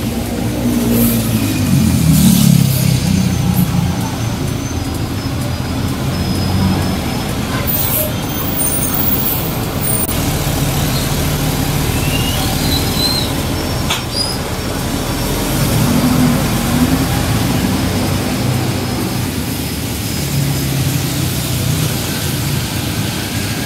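Electric commuter train running: a steady, loud rumble with a low, wavering hum and a few brief high squeals partway through.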